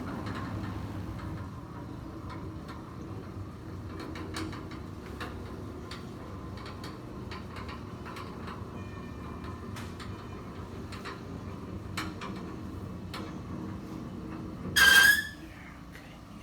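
Handling noises on a chiropractic treatment table: scattered light clicks and rustles over a steady low hum. About fifteen seconds in comes a brief, loud, high-pitched squeak.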